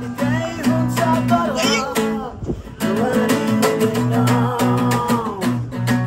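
Background music: a song with strummed acoustic guitar and a singing voice carrying the melody.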